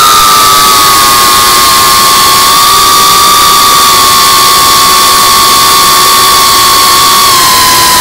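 The brushless motors and propellers of a GEPRC Cinelog35 FPV quadcopter, picked up by the camera riding on it: a loud, steady, high-pitched whine over a rush of air noise. The pitch dips near the end.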